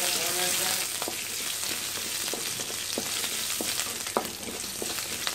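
Small shallots, curry leaves and mustard seeds sizzling steadily in hot coconut oil in an aluminium kadai while being stirred with a wooden spatula, with a few sharp clicks scattered through.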